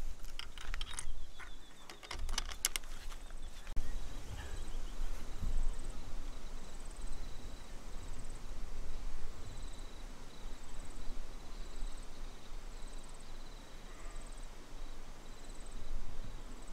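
Wind rumbling on the microphone, with a few clicks and rustles of handling in the first three seconds. From about four seconds in, an insect, cricket-like, chirps faintly about once a second.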